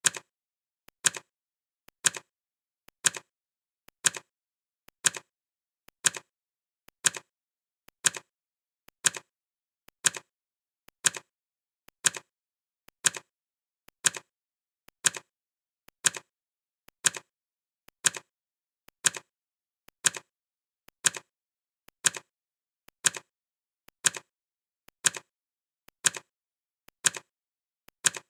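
Clock ticking sound effect: one sharp tick every second, evenly spaced throughout.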